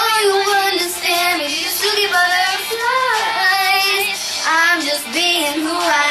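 Teen-pop song with a girl's voice singing the melody over a backing track, the voice sliding and wavering between notes.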